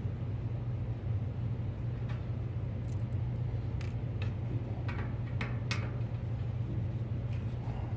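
A few short, light clicks of a screwdriver backing two tiny screws out of an old PC case's metal front panel, spread over a few seconds midway, over a steady low hum.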